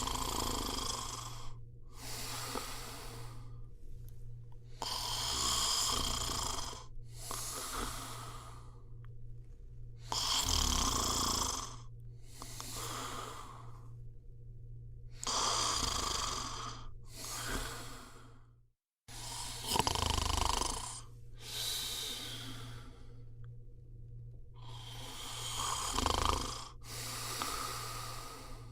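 A sleeping person snoring in slow, regular breaths. Each breath is heard as a pair of rasping in-and-out sounds, about every five seconds, over a faint steady low hum. The sound cuts out briefly about nineteen seconds in.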